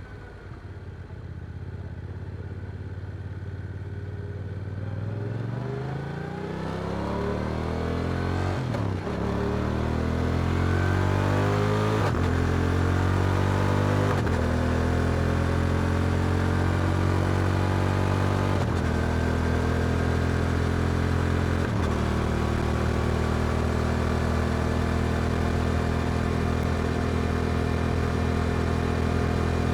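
Yamaha R7's 689 cc parallel-twin engine through an Akrapovic exhaust, pulling away: it climbs in pitch through several quick gear changes, getting louder, then settles into a steady cruise for the second half.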